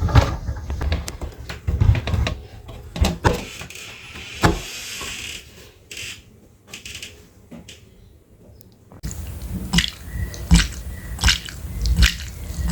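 Meat grinder crushing and extruding material, with irregular crunching clicks over a low rumble. The sound changes abruptly about nine seconds in.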